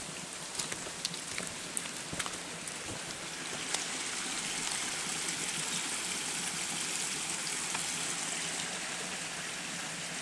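Steady hiss of water in wet forest, like running water and dripping, with scattered sharp ticks in the first few seconds; it grows fuller and steadier from about four seconds in.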